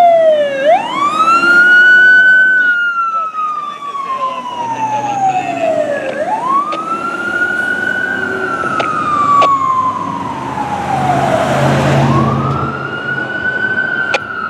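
Fire engine siren on a slow wail: each cycle climbs quickly, then falls away slowly over about five seconds. It rises three times.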